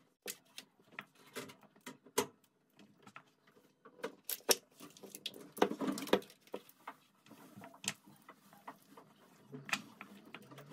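Irregular light clicks and knocks of small objects being handled, a few every second, with louder knocks about 2, 4½, 6 and 8 seconds in.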